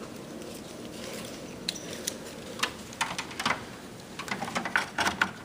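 Scattered sharp clicks and light clattering of plastic and metal parts being handled inside a desktop computer case while a hard drive data cable is fitted, more frequent in the second half, over a steady low background hum.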